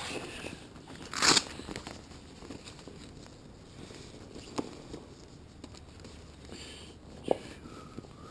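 Handling noise of a hand-moved action camera: rustling close to the microphone, with a loud scraping rush about a second in and a couple of sharp knocks later on.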